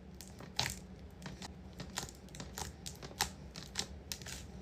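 Sticky slime, freshly mixed with activator, being stretched and pressed by hand, giving irregular sharp clicks and crackles.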